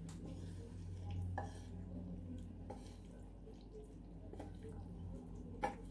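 Wooden spatula pushing stir-fried okra and shrimp out of a metal pan onto a plate of rice: soft scrapes and light clicks of wood and food against the pan, with one sharper knock near the end. A faint steady hum lies underneath.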